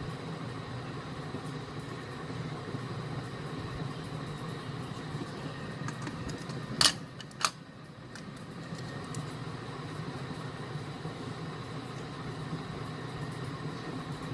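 Steady fan-like hum, with two sharp clicks about halfway through, the first louder.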